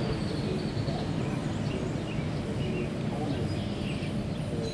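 Steady outdoor background noise, with small birds chirping faintly and briefly now and then.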